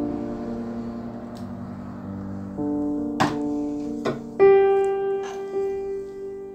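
Slow piano music with long held notes, a new chord coming in about two and a half seconds in and a higher note about four and a half seconds in. A few short knocks are heard over the music.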